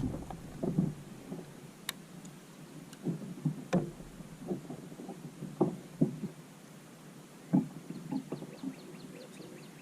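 Irregular knocks and thumps of gear being handled against a plastic fishing kayak, with a couple of sharp clicks and a faint run of rapid ticking near the end.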